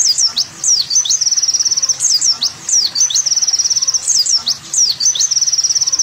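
Songbird song from a bird-training track that mixes a white-eye ('pleci tembakan') with a kolibri wulung sunbird. High song phrases repeat several times, each a few sharp falling whistles followed by a fast, even trill.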